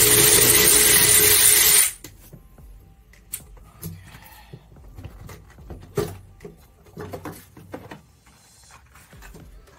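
Power tool running steadily on a socket and long extension at the shifter boot's retaining bolts, stopping abruptly about two seconds in. Then come scattered light clicks and knocks of tools and parts being handled.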